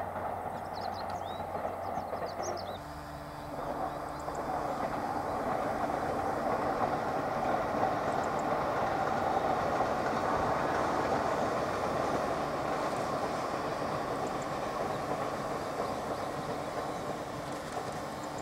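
A long train running along the line below, heard from a distance as a steady rumble that builds to its loudest about halfway through and then slowly eases. A few bird chirps come near the start.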